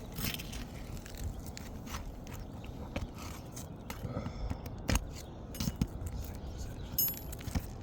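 Roofing nails being worked out of asphalt shingles: scattered scraping and small clicks, with one sharper knock about five seconds in.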